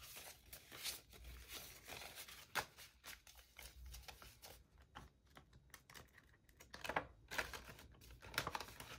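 Faint handling of paper banknotes and a clear plastic binder envelope: bills rustling and the plastic crinkling as a stack of cash is tucked into the pocket, with scattered small clicks and a few sharper ones near the end.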